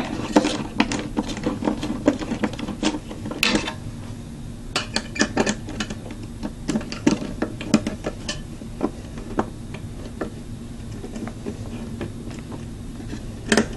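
Irregular small metallic clicks and scrapes of an Allen key turning the mounting screws of a Cooler Master V6GT CPU cooler, with a few louder clacks.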